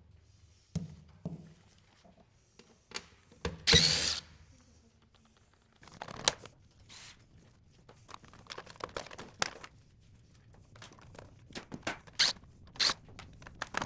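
Metal server parts being handled during a teardown: scattered clicks and knocks, a loud scrape about four seconds in, then a quick run of clicks and rattles.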